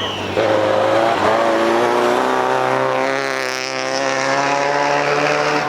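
Subaru Impreza WRX STI rally car's turbocharged flat-four engine running hard at speed. Its pitch jumps twice in the first second or so, then holds fairly steady.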